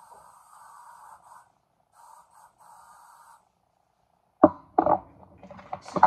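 Short on-and-off hisses of an aerosol hairspray can, then about four and a half seconds in a sharp knock and clatter as things are set down on a hard surface.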